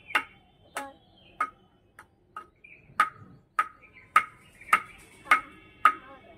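Table tennis ball bounced repeatedly on a paddle held flat, a short ringing tick roughly every half second. The hits are a little uneven at first, then settle into a steady, louder rhythm from about three seconds in.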